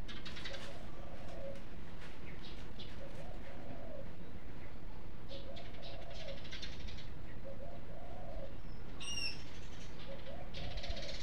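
A bird cooing over and over, one low call about every one and a half seconds, over the light rustling and clatter of a busy market. A short, high, falling chirp comes about nine seconds in.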